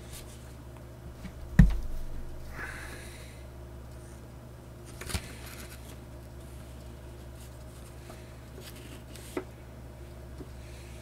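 Handling of a Blu-ray box set and its art cards: a thump about one and a half seconds in, a brief sliding rustle, then a couple of light clicks, over a low steady hum.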